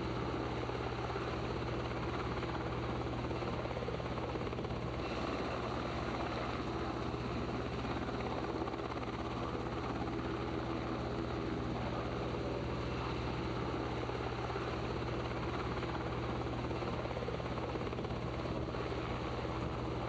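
Steady drone of an aircraft's engine heard from on board, a constant low hum under an even rushing noise with no change in pitch or level.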